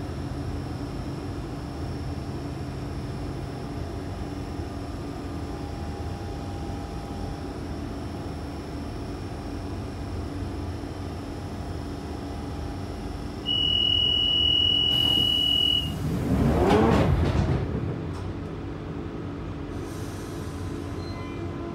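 A London Underground 1992 Tube Stock train running, heard from inside the carriage as a steady rumble and hum. Past the middle, a steady high-pitched tone sounds for about two seconds. Then a louder rushing noise with sweeping pitches swells for about three seconds before the running noise settles back.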